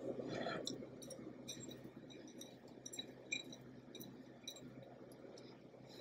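Faint, scattered light clicks and clinks of a ceramic bowl and plate as chopped scallions are picked from the bowl and sprinkled by hand, with a brief scrape at the start.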